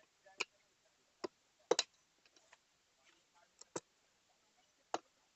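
Tyre lever clicking and knocking against a scooter wheel rim while the tyre bead is being pried off: about six sharp separate clicks, one of them doubled, spread over a few seconds.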